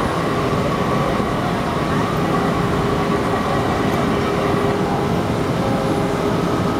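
Industrial laundry machinery running: a steady, loud mechanical drone with a faint steady whine through it.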